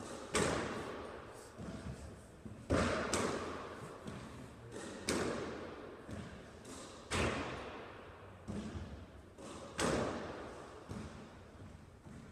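Squash ball struck with racquets and hitting the court walls: sharp cracks about every one to two seconds, each ringing briefly in the enclosed court.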